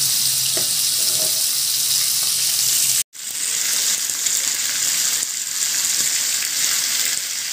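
Whole tilapia shallow-frying in hot oil, sizzling steadily with a bright hiss. The sizzle cuts out for an instant about three seconds in, then carries on.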